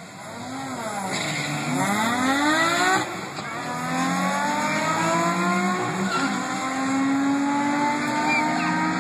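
Two drag cars launching off the start line, one a black BMW E21 with a 2.7-litre M20 straight-six stroker, naturally aspirated: the engine revs climb hard, break at an upshift about three seconds in, then climb steadily again as the cars pull away down the strip.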